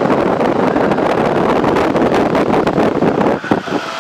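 Loud wind rushing in through the open side window of a Cessna in flight, blasting the microphone over the engine's drone; the rush falters briefly near the end.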